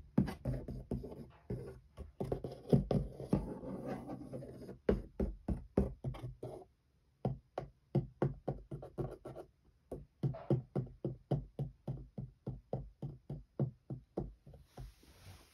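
Cat pawing and clawing at the inside of a cardboard cat house, a quick run of knocks and scrapes on the cardboard, dense at first and then about three a second after a short pause.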